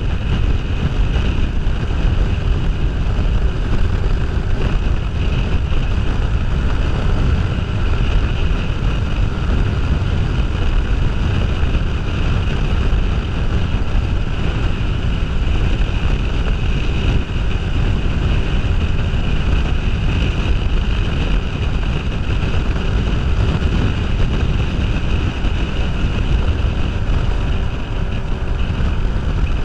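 Kawasaki Ninja 500R motorcycle riding at a steady road speed, its parallel-twin engine under loud wind noise buffeting the helmet-mounted camera's microphone.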